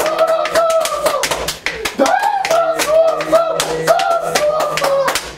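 A voice singing held, wavering notes over many sharp claps or knocks, several a second.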